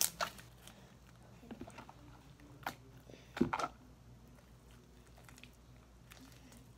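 Wet, sticky slime being squeezed and stretched by hand, giving a few short squelches, the loudest about three and a half seconds in.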